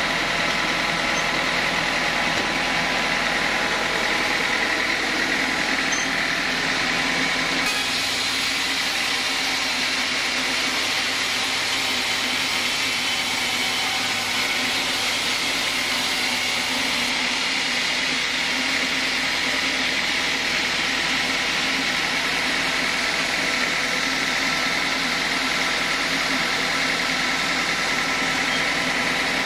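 Band sawmill running steadily: a continuous machine drone with a steady whine, with a slight change in its sound about eight seconds in.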